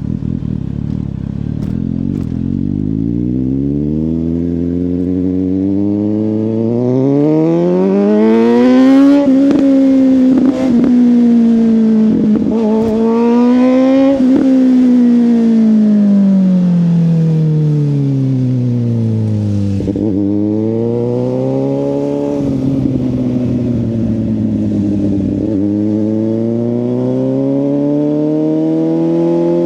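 Suzuki GSX-S750's inline-four engine through a Yoshimura exhaust, accelerating with its pitch climbing, a short break at a shift about ten seconds in, then easing off with the pitch falling through the middle. Further brief breaks follow before it pulls again, rising in pitch near the end.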